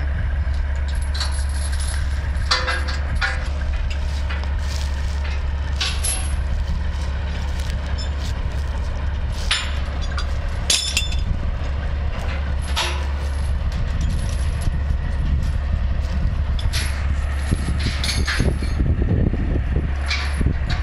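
Heavy truck engine idling with a steady low hum, with scattered metallic clanks and knocks from tie-down chains being handled on the lowboy trailer.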